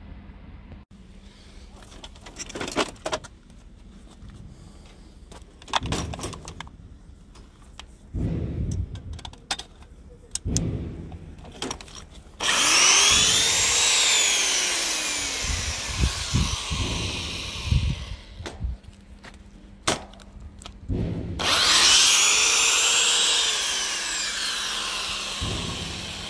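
Old electric drill with a keyed chuck run twice: each time the motor starts with a whine that climbs in pitch, then slows and winds down, the first run about halfway through, the second near the end. Before that, scattered clanks of scrap metal being handled.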